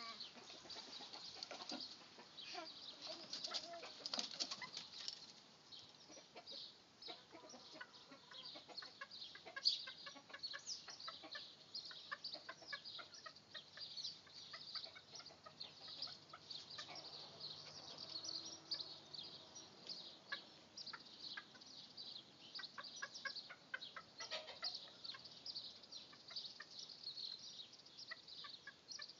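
Chickens clucking faintly, among a steady stream of quick high chirps.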